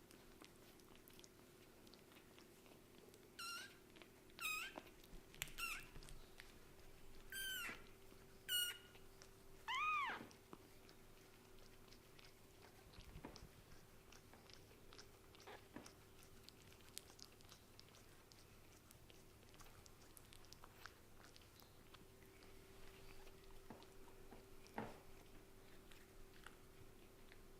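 Kittens mewing: six short, high-pitched mews over the first ten seconds, then only faint scattered clicks.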